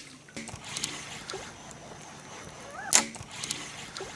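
Topwater frog lure being twitched across the surface, making small splashes and plops, with one sharp splash about three seconds in.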